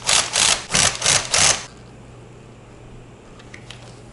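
About five quick rasping scrapes, as of a screwdriver turning the mounting screws of a stock AMD CPU cooler, over the first second and a half; after that only a low steady hum is left.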